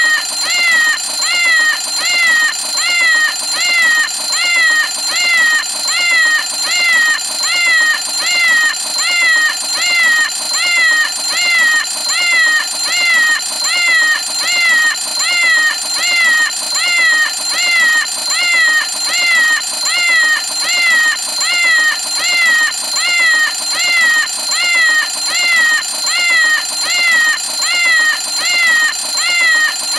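A cat-faced cartoon alarm clock going off: an unbroken string of short meows in quick, even succession, each falling in pitch, over a steady high ringing tone.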